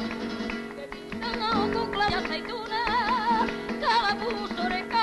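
Flamenco-style Latin music: strummed guitar with a wavering, vibrato melody line over it.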